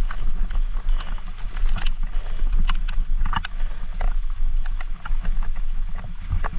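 Mountain bike being ridden along a flooded, rain-soaked trail, picked up by a helmet-mounted camera: a steady low rumble of wind and tyres with many scattered sharp clicks and splashes.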